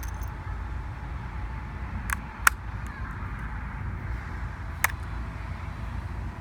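Three short sharp plastic clicks, keycaps being prised off a MacBook keyboard, two close together about two seconds in and one near five seconds, over a steady background hiss and rumble.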